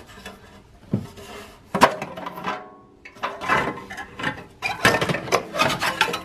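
Thin sheet-metal heat shield over the turbos of a BMW M6's twin-turbo V8 being worked loose and lifted out of the engine bay: irregular clanks, scrapes and rattles of metal against engine parts, with one sharp knock a little under two seconds in.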